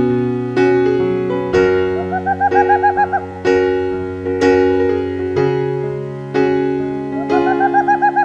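Calm piano music: single notes struck about once a second over held low bass notes. A warbling bird call is mixed in twice.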